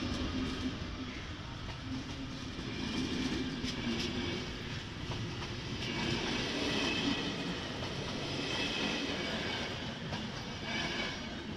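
Passenger coaches of a Czech Railways express train rolling past close by behind a class 163 electric locomotive: a steady rumble of wheels on rail, with a few sharp clicks over the rail joints.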